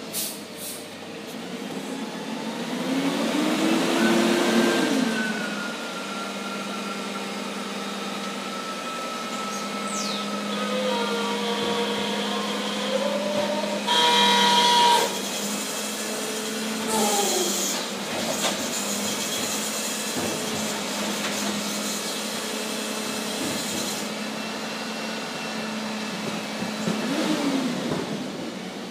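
Refuse truck's diesel engine running, rising and falling in pitch several times as it revs up and settles back. About halfway through comes a loud tone lasting about a second, followed by a hiss that runs for several seconds.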